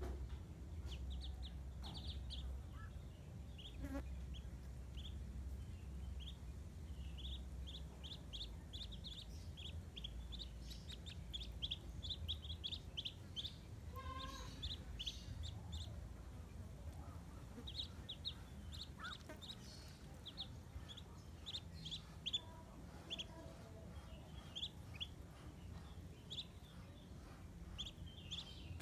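Muscovy ducklings peeping: many short, high peeps in quick runs.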